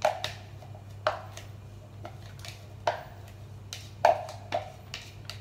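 Upturned plastic food-chopper container knocked against the rim of a metal mixing bowl to shake out chopped ginger, garlic and chili: about five sharp knocks at irregular intervals with smaller taps between, each with a short metallic ring.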